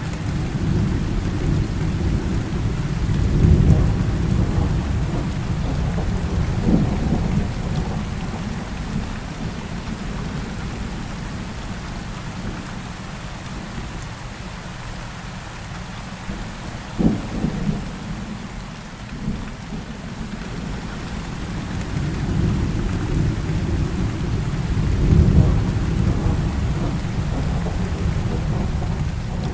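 Heavy rain falling steadily with rolling thunder: deep rumbles swell up twice, once in the first few seconds and again near the end, and a sharper thunderclap breaks about halfway through.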